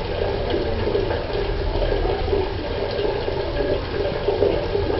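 Hot water from an instant water heater pouring steadily into a bucket as it fills.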